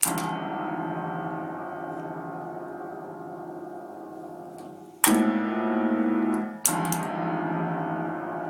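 Piano keys banged in clusters three times, at the start, about five seconds in and again a second and a half later. The sustain pedal is held down, so each strike rings on and fades slowly, with a deep, drum-like boom.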